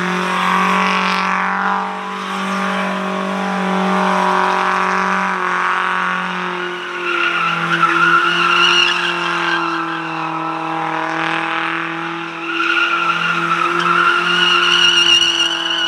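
Car engine held at high revs while its spinning tyres squeal in waves. The squeal is strongest from about seven seconds in and again near the end.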